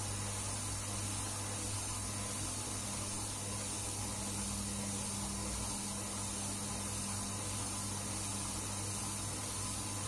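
Front-loading washing machine in its wash cycle, the drum turning laundry through soapy water with a steady low motor hum.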